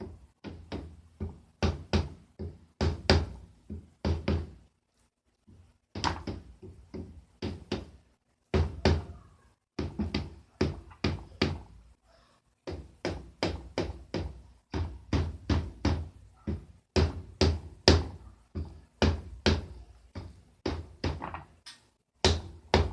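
Rubber mallet striking the clutch-side case of a Hensim 250 twin motorcycle engine, dull knocks a few a second in runs with brief pauses. The case is being tapped to break it loose from its gasket.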